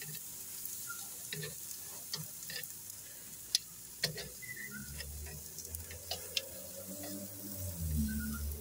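Picanha and ribeye steaks sizzling on a grill grate over a live fire, with scattered sharp pops and clicks from the fire and the metal tongs. A low hum joins about halfway through.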